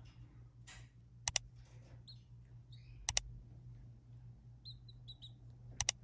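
Soft, short high chirps from a canary and its nestlings at the nest, broken by three sharp double clicks, about two seconds apart, that are the loudest sounds. A steady low hum runs underneath.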